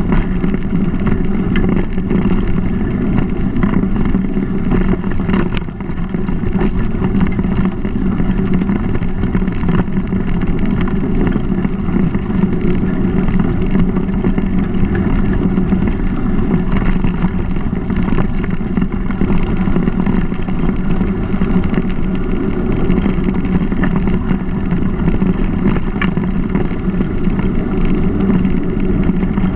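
Steady rumble of a mountain bike riding along a dirt trail, picked up by a bike-mounted GoPro: tyre noise and wind on the microphone, with small knocks and rattles here and there.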